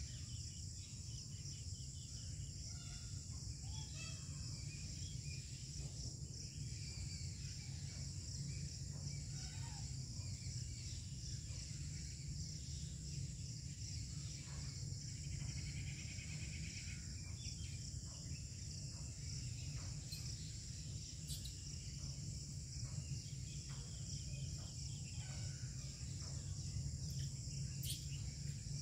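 Outdoor ambience: a steady high-pitched hiss or buzz over a low rumble, with scattered faint chirps and a few sharp clicks in the second half.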